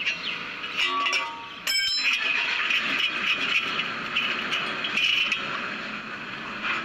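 Metal tools clinking and scraping on a car's steering linkage as a tie rod end is being undone. Two ringing metallic clinks come about one and two seconds in, over a steady hiss.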